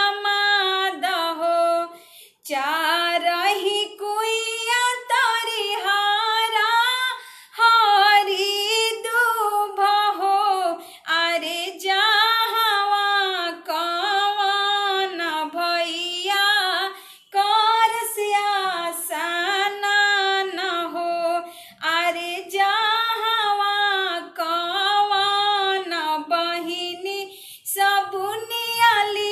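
A woman singing a Bhojpuri wedding song (shaadi geet) unaccompanied, in phrases of a few seconds each with short breaks for breath.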